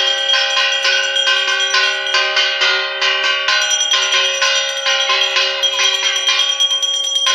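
Brass hand bell rung continuously for a puja, struck rapidly about five or six times a second so that its several ringing tones never die away.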